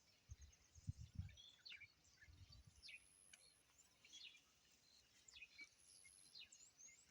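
Faint birdsong outdoors: many short, quick chirps, with a thin high steady tone that comes and goes every second or two. A few soft low thumps in the first second or so.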